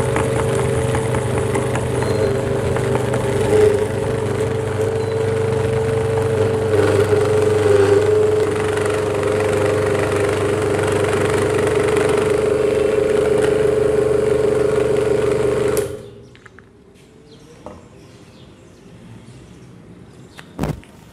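Electric meat grinder motor running with a steady hum as it forces bar soap through the cutting plate. The motor cuts off suddenly about three-quarters of the way through, leaving quiet handling noises and one sharp knock near the end.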